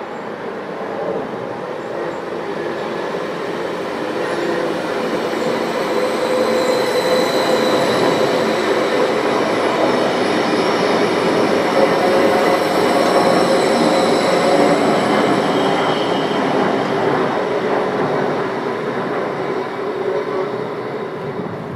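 ODEG Stadler KISS double-deck electric multiple unit running past: wheel and rail noise that swells as it nears, is loudest about halfway through, and fades as it moves off. Faint steady whining tones run over the rumble.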